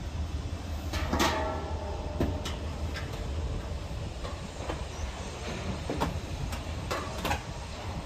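Clicks and knocks of hands working on the sheet-metal casing of an air-conditioner outdoor unit, with a short ringing metal scrape about a second in, over a steady low rumble.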